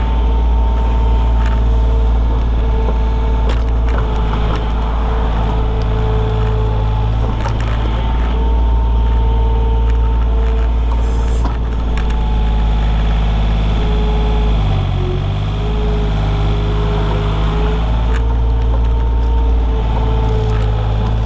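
Komatsu PC28 mini excavator's diesel engine running under working load, with a steady hydraulic whine over it. The engine pitch drops briefly about two-thirds of the way through as it takes a heavier load, and a few light knocks come from the machine at work.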